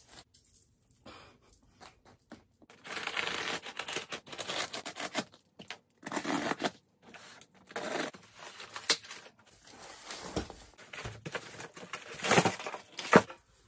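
Cardboard shipping box being opened and unpacked by hand: tearing, scraping and rustling of cardboard in irregular bursts, with a sharp knock near the end.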